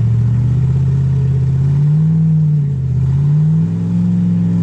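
Rock buggy's engine revving under heavy throttle as it climbs a steep sandstone ledge; the revs rise about two seconds in, dip briefly near three seconds, then climb again and hold.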